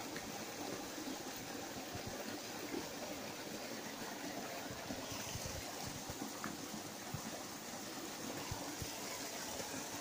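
Bare feet squelching in soft, wet mud: many small, irregular wet squishes and sucks as the feet press and shift, over a steady hiss.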